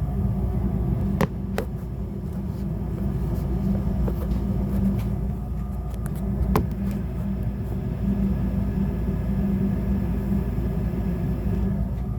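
Rheem furnace running in heat mode on its first startup of the season: a steady low rumble with a hum, and a few sharp clicks about a second in and again about six and a half seconds in.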